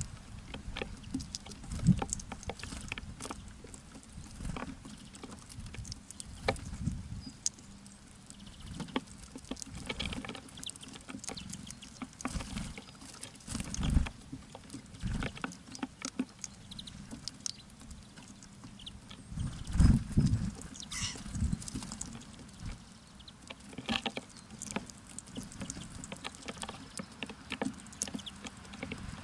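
Small birds feeding at a feeder: an irregular patter of pecking and hopping taps, with a few louder low thumps, one near the middle and one about two-thirds through.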